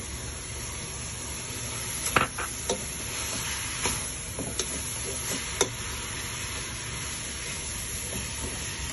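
Sliced bell peppers and onions sizzling in a frying pan while a spatula stirs them, with a handful of sharp clicks of the spatula knocking against the pan, the loudest about two seconds in and again near the middle.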